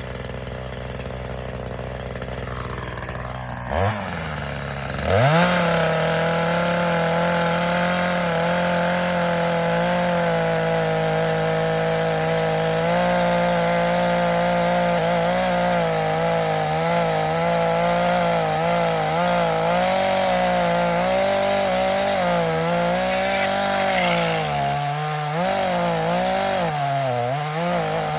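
Chainsaw idling, revved briefly about four seconds in, then opened to full throttle a second later and held while it cuts into a dead pine trunk. Near the end the engine pitch wavers and dips as the chain takes load in the wood.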